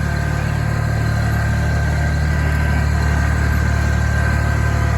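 A steady low engine drone: an engine running evenly at constant speed, with no change in pitch.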